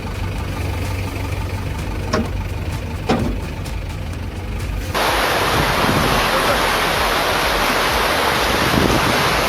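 A heavy machine's diesel engine running steadily, with two short sounds over it. About halfway through, it cuts abruptly to a loud, even rushing noise of fast-flowing river water.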